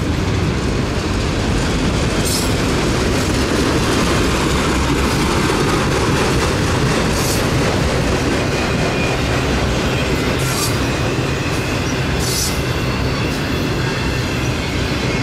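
Freight train of autorack cars rolling past close by, a steady loud rumble and clatter of steel wheels on the rails, broken by a few brief high-pitched bursts.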